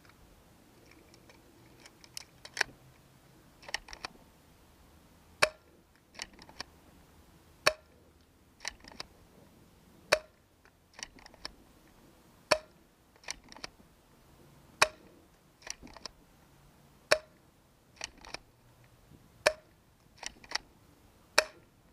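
JT SplatMaster Z100 spring-powered paintball pistol firing, a sharp snap about every two and a half seconds, with quieter clicks between the shots.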